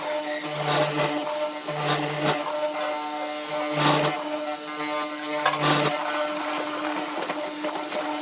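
An electric power tool's motor runs steadily with a buzzing hum, and a lower hum comes and goes about four times.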